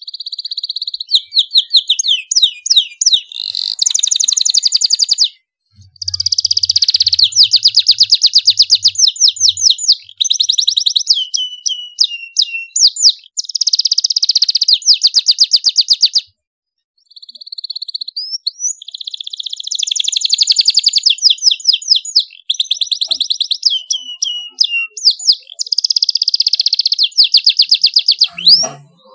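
Domestic canary singing loudly in long phrases of fast trills and rolls with short gliding notes between them. The song breaks off briefly twice, about five and sixteen seconds in.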